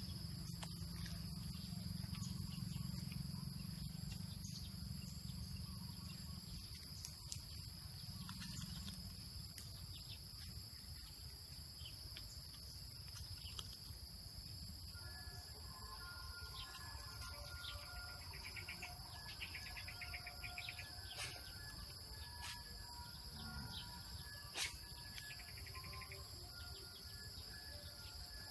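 Insects droning steadily in two continuous high tones, with birds calling in short repeated notes and trills from about halfway through. A low rumble sits under the first third.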